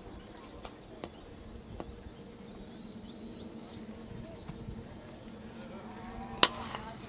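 Insects chirping in a steady high trill, with a single sharp crack of the cricket bat hitting the ball about six seconds in.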